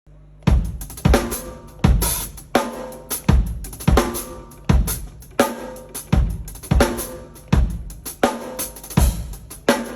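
Drum kit played in a steady groove: bass drum and snare hits with hi-hat and cymbals ringing between them, heavy accents about every three-quarters of a second. The playing starts about half a second in.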